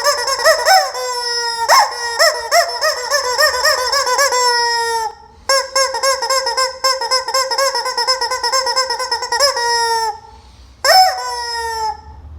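Rubber squeaky chicken toy being squeezed, giving three long, loud squeals. Each starts with a wavering, warbling pitch and settles into a steady tone that sinks slightly before it cuts off.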